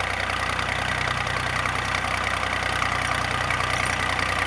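Volvo BM 400 tractor engine running steadily at low revs with an even, fast beat.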